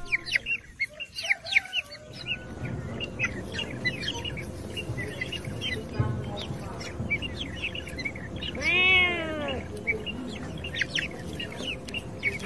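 Birds chirping in a steady run of short, high calls. About nine seconds in comes one louder, drawn-out call that rises and then falls.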